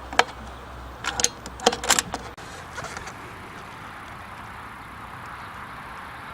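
Sharp metallic clicks from an Air Arms S410 bullpup air rifle being handled: one loud click near the start, then a quick run of clicks and rattles about a second in, followed by steady outdoor background hiss.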